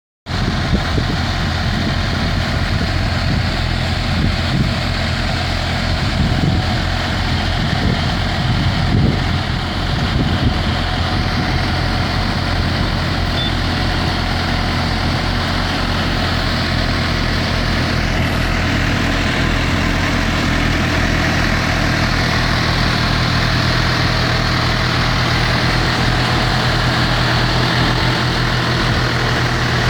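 Tractor engine running steadily while driving a potato harvester at work.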